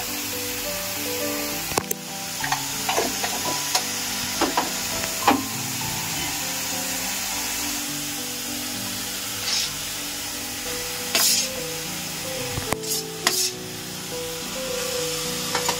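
Onion tempering sizzling steadily in hot oil in a pan, with the clinks and scrapes of a steel spoon and vessels. A simple background melody plays underneath.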